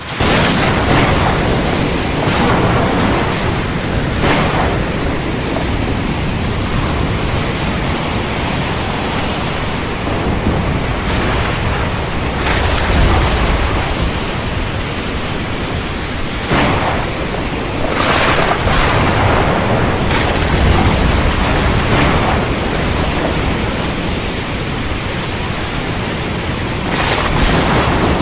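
Heavy rain pouring steadily while thunder rumbles and crackles now and then. The deepest rolls of thunder come about halfway through and again about two-thirds of the way in.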